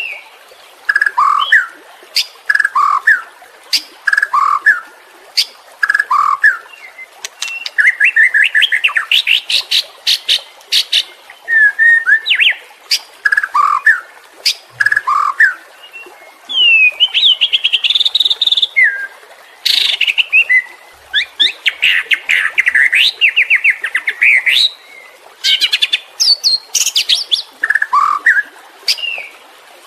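White-rumped shama singing loudly. Short descending whistled phrases come about once a second, then run into fast rattling trills and sharp clicks from about eight seconds in, with whistled phrases returning near the end.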